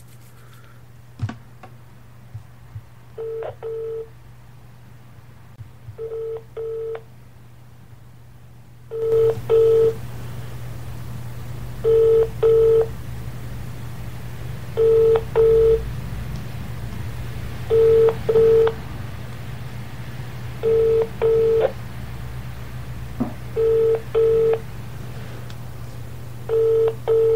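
British telephone ringback tone heard over the phone line: the double 'brr-brr' ring repeating every three seconds, nine times. The called number is ringing out unanswered. A steady line hum comes in about nine seconds in, and the rings are louder from then on.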